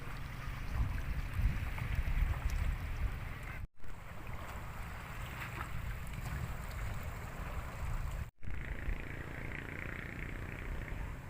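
Seaside ambience: wind buffeting the microphone with a low rumble, and sea waves washing in the background. The sound cuts out briefly twice, about a third of the way in and again near the end.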